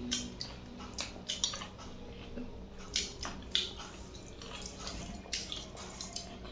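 Eating by hand from stainless steel plates: fingers mixing rice and chicken curry, with scattered small wet clicks and squishes of food and fingers against the metal.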